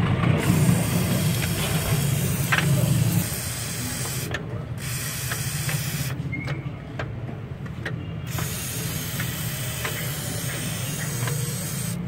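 Aerosol can of WD-40 hissing as it sprays the manual gearbox's shift-linkage joints, in bursts with short breaks about four and a half seconds in and from about six to eight seconds. The spray is lubricating joints whose grease has dried out and made the gear shifts stiff. A low hum runs underneath, louder for the first three seconds.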